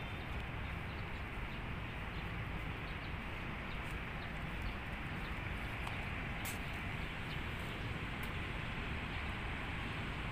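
Steady outdoor background noise, an even hiss of the kind distant traffic and wind make, with a couple of faint clicks in the second half.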